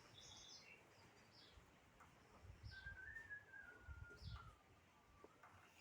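Faint outdoor birdsong: short, high, falling chirps from small birds every second or so, with a thin, wavering whistled note about halfway through, over soft low rumbles.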